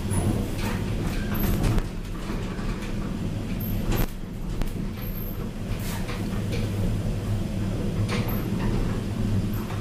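Cabin of a 1993 Tepper inclined traction glass elevator travelling along its sloping shaft: a steady low hum, with a sharp click or knock every couple of seconds.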